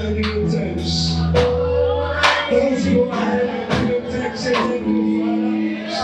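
Church worship music: singing over held keyboard chords and bass, with regular drum and cymbal strikes.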